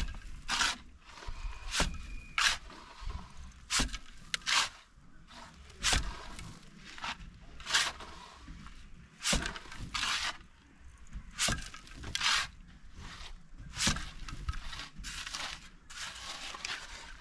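A mason's trowel scraping wet plaster across a wall in short strokes, about one a second, while a hole is filled.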